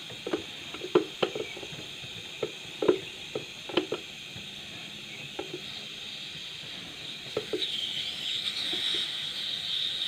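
Refrigerant gas hissing out of a refrigerator's cut copper suction pipe at the compressor, with a string of light metallic clicks and taps from a hand tool on the tubing. The hiss swells near the end. The gas still left in the system is the sign of what the technician takes for a blockage in the filter-drier or capillary tube.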